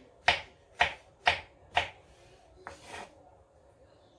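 Kitchen knife slicing mushrooms on a wooden cutting board: four sharp knocks of the blade on the board, about two a second, then a softer, rougher sound just before three seconds in.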